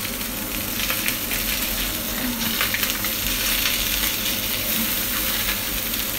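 Pork tenderloin medallions sizzling steadily in hot oil in a frying pan as they are seared, with light clicks and scrapes of a wooden spatula turning them over.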